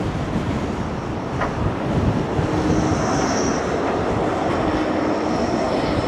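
A tram passing, with a faint high whine from its running gear from about three seconds in, under heavy wind buffeting the microphone.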